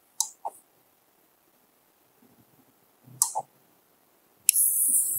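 A few soft clicks in a quiet room, then a louder hiss that starts near the end.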